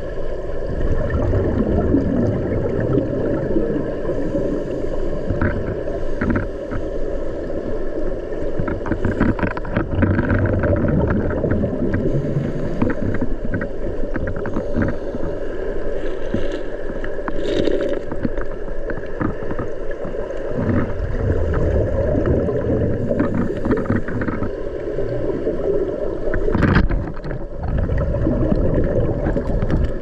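Waterfall water churning into a plunge pool, heard underwater: a muffled, steady low rumble with scattered clicks and knocks.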